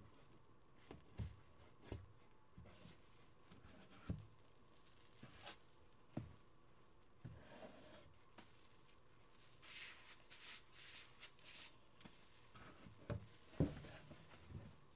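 Fuzzy-gloved hands squishing and rubbing thick soap foam in a plastic tub, with a faint crackle of bubbles and soft dull knocks against the tub now and then. The loudest knock comes near the end.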